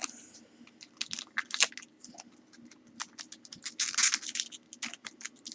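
Foil wrapper of a trading-card pack crinkling and tearing open, heard as a run of irregular crackles and rustles with a denser burst of crinkling about four seconds in.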